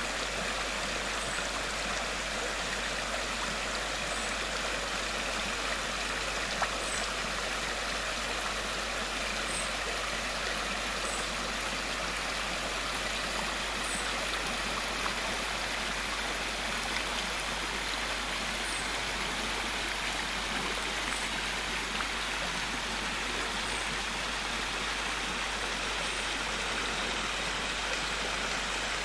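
Shallow stream running in a thin sheet and small cascades over a flat bedrock slab, a steady rush of water.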